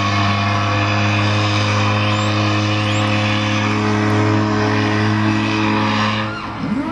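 A ship's horn giving one long, loud, steady deep blast that cuts off near the end, followed right at the end by the start of a rising siren-like wail.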